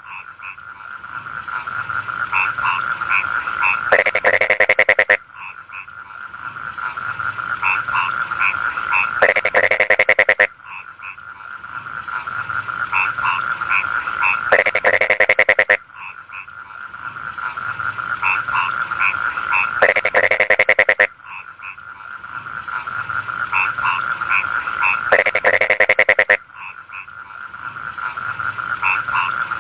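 Frogs calling in a rice field: a steady croaking chorus, with a loud, rapid, pulsed croak that builds and then cuts off sharply about every five seconds.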